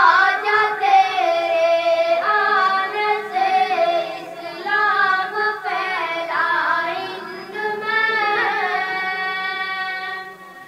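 A high solo voice singing an Urdu tarana, drawn-out melodic phrases with long held notes and brief pauses between lines.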